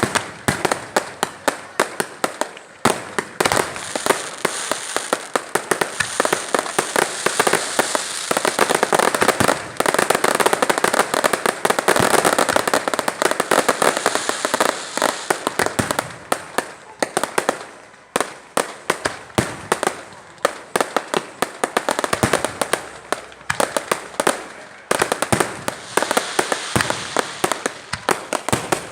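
Long string of firecrackers going off: a rapid, continuous volley of sharp cracks and bangs, many a second, at its thickest in the middle.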